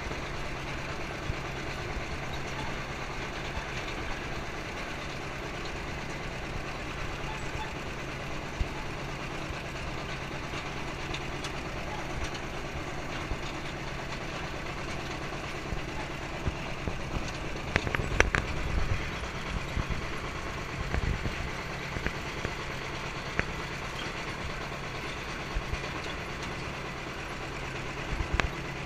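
Farm tractor engine running steadily while towing a riding wagon, with the wagon rattling and clanking as it rolls; a burst of louder clattering comes a little past the middle and again shortly after.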